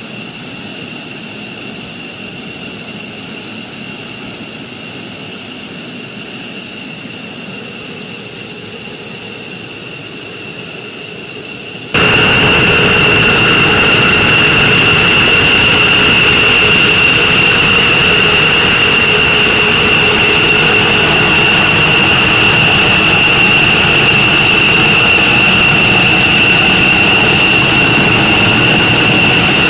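Jet engine running with a steady high-pitched whine over a loud rushing noise. It suddenly becomes louder and stronger about twelve seconds in.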